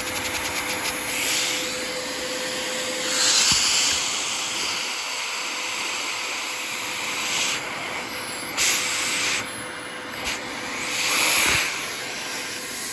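Steady rushing hiss of suction air drawn through a running LEGO overhead-cam vacuum engine, with a few louder surges of hiss.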